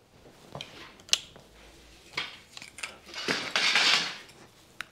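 Metal hand tools clinking and clacking on a workbench, with a hiss of compressed air lasting about a second from the red shop air hose a little past the middle.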